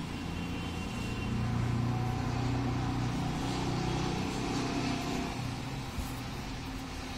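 A low engine-like hum that swells about a second in and eases off near the end.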